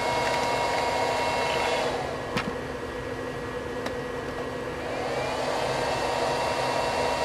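Steady fan whir and electrical whine from a 750 W modified sine wave power inverter under heavy load from plugged-in heaters. The whine and whir drop away about two seconds in, with a couple of plug clicks, as the load is disconnected, then come back with a rising whine about five seconds in as power returns.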